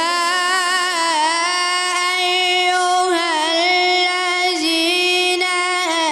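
A boy chanting solo and unaccompanied in the melismatic Arabic religious style of Quran recitation and ibtihal. He holds one long phrase on a steady pitch, decorated with quick ornamental turns.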